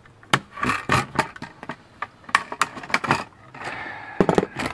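Pliers cracking and snapping the plastic housings of connector sockets off a circuit board: an irregular series of sharp cracks and clicks.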